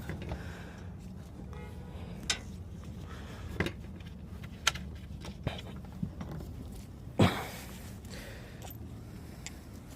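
Scattered light clicks and knocks of tools and small metal parts being handled, about six in all, the loudest a knock about seven seconds in, over a steady low rumble.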